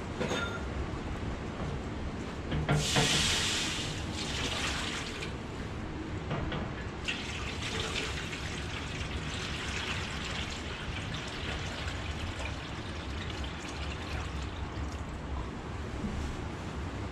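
Maple sap poured from a large plastic jug into a shallow enamel pan: a splashing rush starts about three seconds in and settles into a steady stream that surges now and then.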